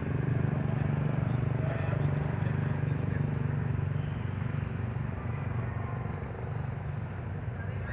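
An engine running steadily with a low hum, easing off a little in the second half, with faint voices in the background.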